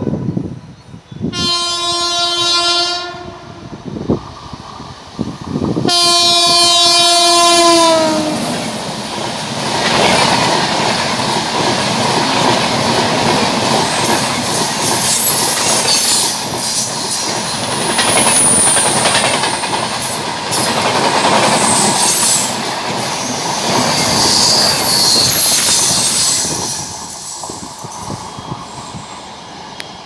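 WAP7 electric locomotive sounding two long horn blasts, the second dropping in pitch at its end as the engine passes. Then the passenger coaches' wheels clatter over the rail joints in a steady rush for about twenty seconds, fading near the end.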